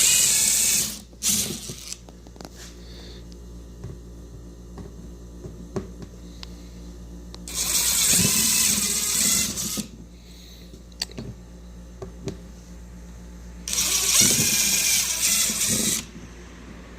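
Power drill with a 3/16-inch bit drilling through the bottom of a plastic poly case, running in three bursts of a couple of seconds each, with a brief blip just after the first.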